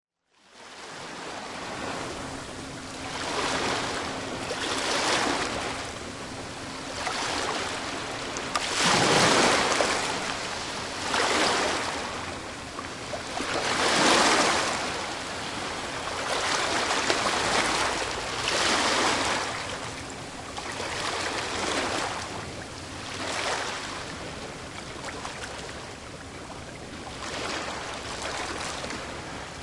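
Ocean waves breaking on a beach: a constant surf noise that swells as each wave crashes, every few seconds, with the biggest breaks about nine and fourteen seconds in.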